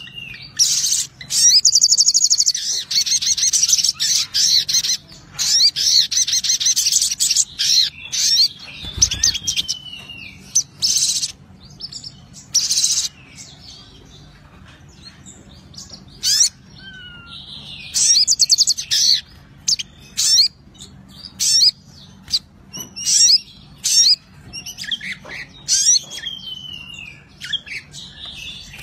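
Male olive-backed sunbird (sogok ontong, sriganti) singing in an agitated, aggressive bout. It gives long, rapid, high-pitched trills and chatter with short down-slurred notes, in repeated bursts broken by brief pauses.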